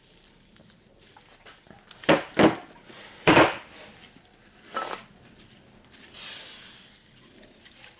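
A metal valve spring compressor being handled, clanking four times, then an aerosol can of WD-40 spraying in a hiss of about a second.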